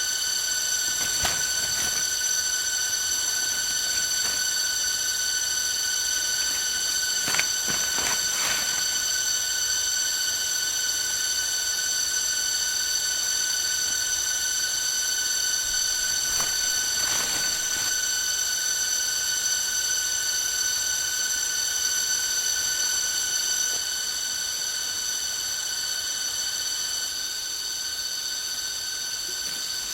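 Steady, shrill drone of forest insects: one high tone with overtones, holding unbroken, with a few faint rustles or knocks at about 7 to 8 and 17 seconds in.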